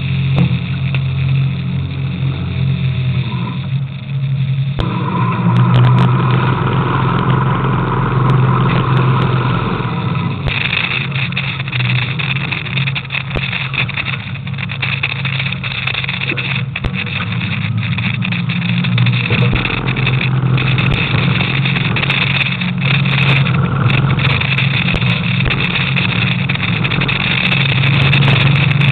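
A crab boat's engine runs steadily, with scattered knocks and clatter from the deck. A higher whine starts about five seconds in and stops about five seconds later.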